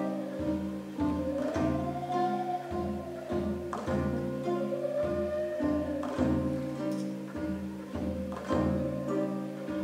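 Kazakh folk ensemble of traditional bowed and plucked string instruments playing an instrumental piece: a sliding bowed melody rides over a steady, pulsing plucked rhythm.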